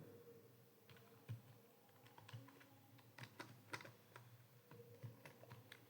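Faint, irregular keystrokes on a computer keyboard, typing dictated Hindi words, with a faint steady hum behind them.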